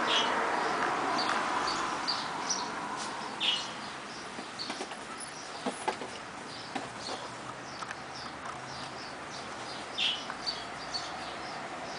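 Small birds chirping again and again in short calls, a few of them louder, near the start, about a third of the way in and near the end. Midway comes a brief patch of soft thumps and scuffling as a Chihuahua puppy wrestles a large plush toy dog.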